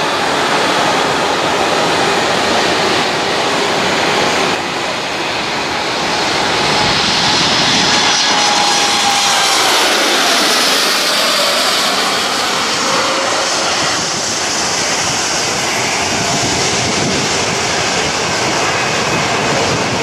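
Boeing 787-9's twin turbofan engines at takeoff power: a steady jet roar during the takeoff and climb-out. It swells loudest as the airliner passes close by in its climb, with a whine that drops in pitch, then eases as it climbs away.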